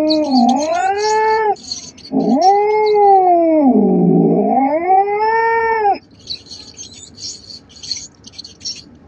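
Domestic cat caterwauling. One drawn-out yowl ends about a second and a half in. A longer yowl of nearly four seconds follows, its pitch rising, sagging in the middle and rising again before it falls off.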